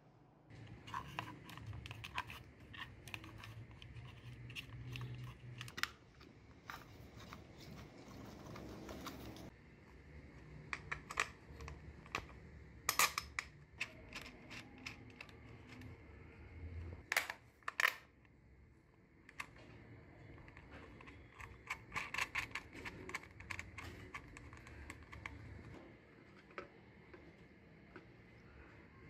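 Irregular small clicks and taps of hands working a Honda CD 70's headlight shell and wiring, pushing bullet connectors and handling wires, with a few louder sharp clicks in the middle. A low steady hum runs underneath.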